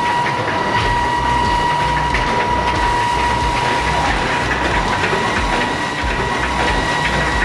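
Bucket chain excavator working: a steady metallic clatter and rattle of the chain and buckets with a constant high squeal over a low mechanical rumble.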